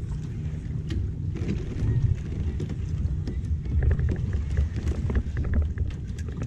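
Wind buffeting an action-camera microphone, a steady low rumble, with scattered light clicks and taps from the kayak and fishing gear.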